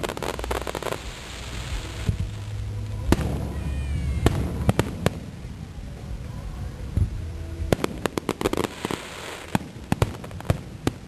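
Aerial fireworks going off: sharp bangs one after another, with rapid crackling clusters about a second in and again near the end, over a low rumble that fades after about four seconds.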